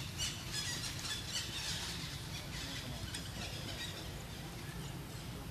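Outdoor pond-side ambience: a run of short, high-pitched animal chirps or squeals, thick at first and thinning out after about three seconds, over a steady low rumble.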